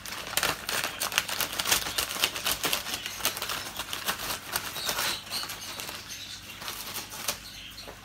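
Scissors cutting across the top of a plastic bird-seed sack: a rapid run of sharp snips and crunches of the plastic, thinning out after about five seconds.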